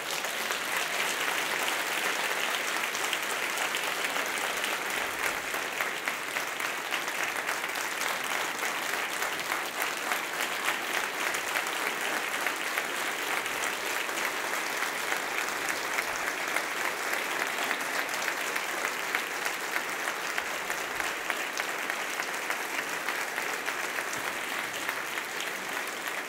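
An audience applauding steadily for a long stretch, a sustained ovation that eases only slightly toward the end.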